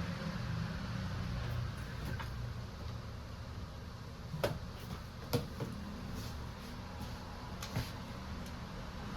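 A few light, sharp clicks, three of them standing out, over a steady low background rumble.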